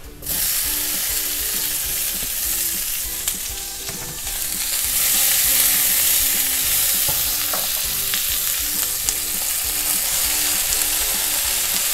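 Cherry tomatoes dropped into hot garlic oil in a frying pan set off a loud sizzle that starts suddenly and keeps going as the pan is stirred. The sizzle grows a little louder about five seconds in.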